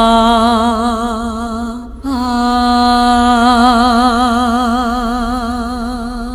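Dance accompaniment music led by one voice singing long held notes in a chant-like style. After a short break about two seconds in, it takes up a second long note with wide vibrato, which fades near the end.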